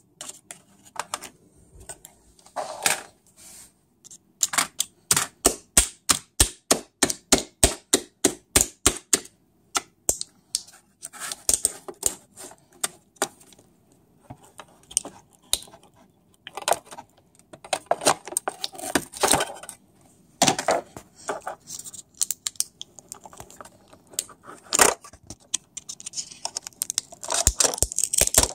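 A series of sharp clicks and knocks: a regular run of about three a second for several seconds, then scattered clicks with some rustling.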